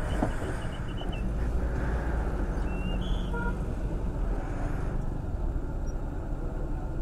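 Steady low rumble of motor vehicle engines in a traffic jam, with a few faint short high tones about three seconds in.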